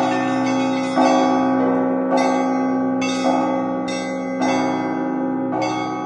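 Russian Orthodox church bells rung by hand in a zvon. Bells are struck about once a second over the steady low hum of a large bell ringing on, and small high bells join in with quicker strokes near the end.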